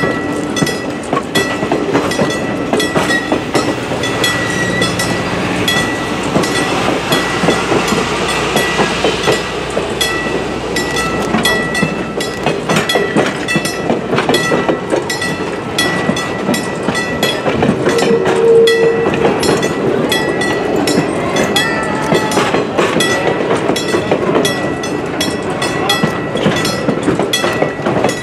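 Passenger cars of a heritage excursion train rolling past at speed, their wheels clicking steadily over the rail joints. A thin, steady high-pitched ring sounds throughout, with a brief lower tone about two-thirds of the way through.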